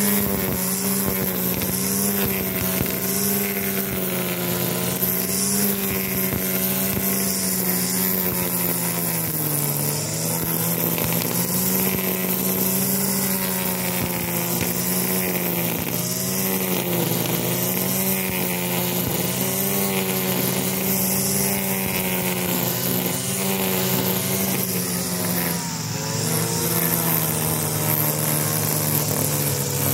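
STIHL FS200 two-stroke brush cutter running at high speed, its nylon line head cutting grass along a lawn edge. The engine note dips briefly twice: about ten seconds in and again some fifteen seconds later.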